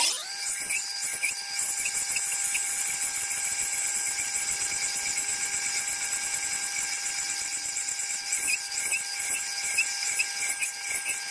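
Powered sharpening wheel running at a steady whine while the chipped edge of a Baccarat Damashiro kitchen knife is ground against it, with a hiss of steel on the wheel and a few faint ticks.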